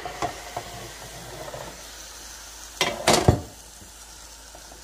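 Raw chicken pieces sizzling in a hot pan as they start to brown in their own fat and juice, with one loud knock of pan or utensil about three seconds in.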